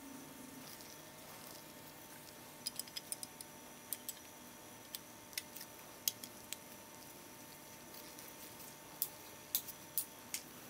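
Light, sharp clicks and ticks of small metal binocular parts knocking together as they are handled in gloved hands, coming in scattered clusters: a quick run about three seconds in, a few more through the middle, and another run near the end.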